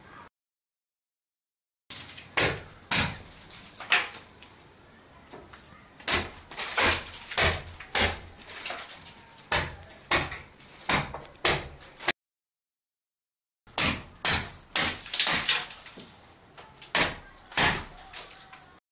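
Repeated sharp knocks and bangs, irregular, one or two a second and often in pairs. The sound cuts out completely twice for a second or so.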